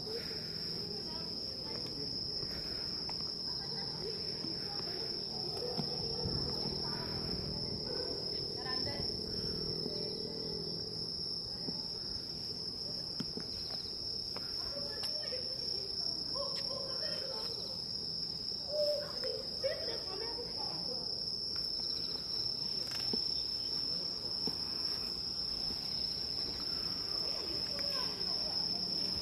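Insects singing in a steady, high-pitched chorus, one unbroken drone.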